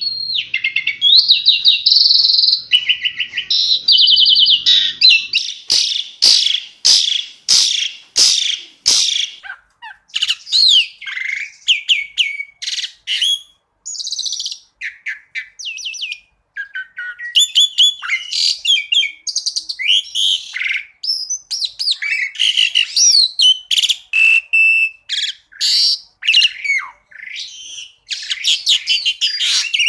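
Asian pied starling (jalak suren) singing a long, varied song: fast high trills, sweeping whistles and a run of sharp clicking notes, one phrase after another with short gaps.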